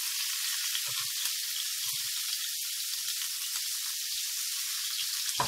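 Chopped onion sizzling steadily in hot olive oil in a frying pan, with a few faint knocks of a knife scraping the last pieces into the pan.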